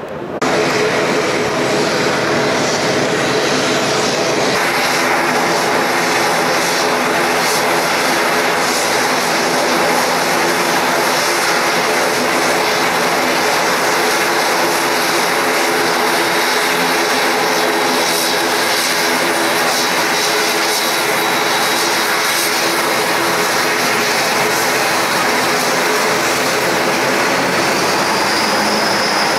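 ATR 72 twin turboprop engines running as the aircraft taxis: a loud, steady propeller drone with a high engine whine. Near the end the whine rises slightly in pitch.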